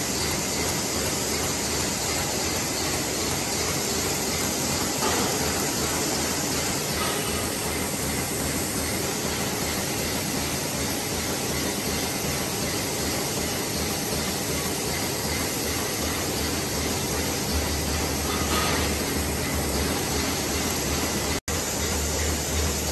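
Automatic tea bag packing machine running: a steady mechanical whir and rattle from its rotating bag-handling wheel and paper feed, with a low hum growing stronger near the end and a brief cut-out just before the end.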